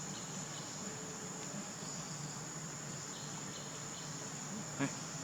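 A steady, high-pitched chorus of insects, such as crickets or cicadas, with a short sharp click or knock near the end.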